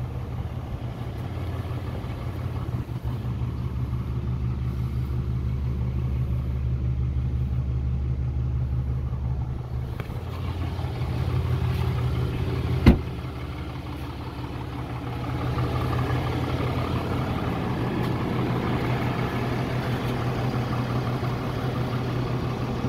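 2021 Ram 3500 dually pickup's engine idling with a steady low hum, with one sharp knock about thirteen seconds in.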